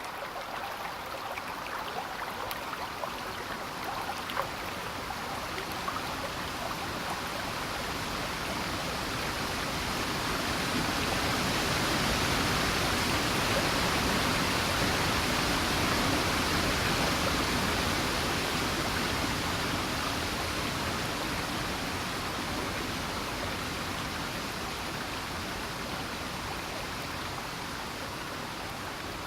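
Rushing water of a stream, a steady rush that swells louder toward the middle and gradually eases off again.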